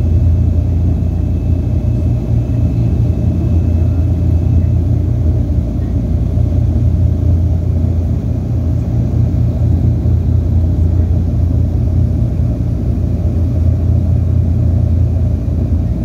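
Douglas DC-3's radial piston engines and propellers droning steadily in level flight, heard from inside the cabin beside the wing: a deep, even, unchanging drone.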